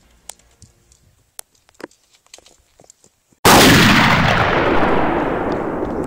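A few faint clicks and taps, then about three and a half seconds in a sudden loud explosion sound effect whose rumble dies away slowly.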